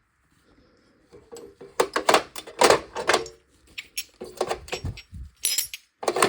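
Steel crow's-foot wrenches and torque adapters clinking and clattering against each other as they are handled in a toolbox, an irregular string of metallic knocks and rattles.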